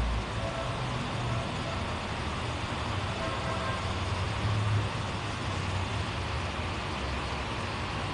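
Steady background rumble and hiss, with a low wavering hum underneath.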